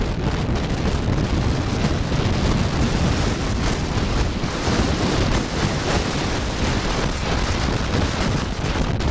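Strong wind buffeting the camera's microphone: a loud, steady rumbling rush with no break.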